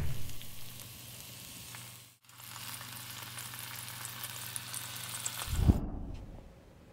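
Steaks sizzling as they fry in a nonstick frying pan, a steady hiss that breaks off for a moment about two seconds in. Near the end comes a dull thump, and the sizzling stops.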